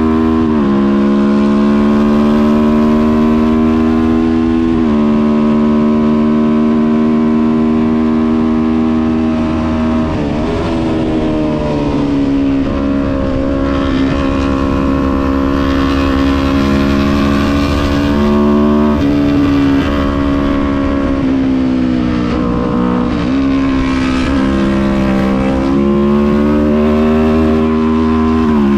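Kawasaki Ninja 400 parallel-twin engine running at high revs on track. Its pitch mostly holds steady, drops and dips around ten seconds in and again a little past twenty seconds as the rider eases off and shifts for corners, then climbs again near the end.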